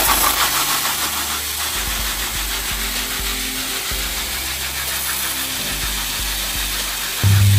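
Spray nozzles of an RDF 50 PRO rotary drum filter hissing steadily as they jet water onto the stainless-steel mesh filter panel during the automatic rinse cycle, with rinse water splashing into the drain gutter. A steady low hum starts abruptly near the end.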